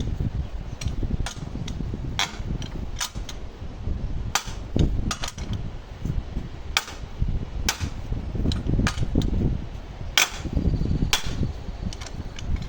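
Sharp metal-on-metal hammer blows on steel excavator track parts, irregular, roughly one or two a second, over a steady low rumble.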